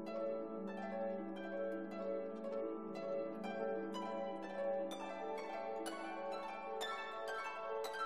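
Calm instrumental background music of plucked string notes, about two or three a second, over a held low note.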